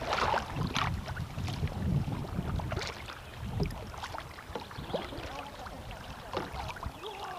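Double-bladed kayak paddle dipping into river water and splashing with each stroke, the loudest splash right at the start and further strokes about every second, over a steady low rush of water along the hull.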